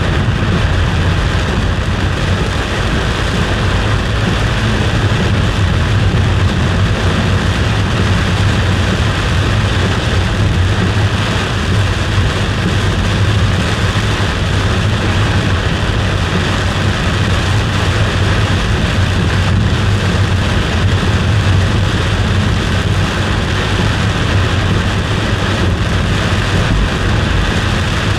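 Steady road noise and low rumble heard from inside a moving car's cabin, an even hiss over a deep drone with no breaks.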